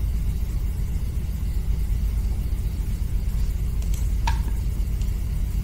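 Steady low background hum, with a couple of faint clicks and a short blip about four seconds in.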